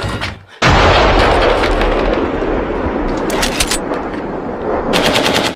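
Gunfire and explosion sound effect: a sudden loud blast about half a second in, a long noisy roar that slowly fades, and two quick volleys of rapid shots, one in the middle and one near the end, before it cuts off sharply.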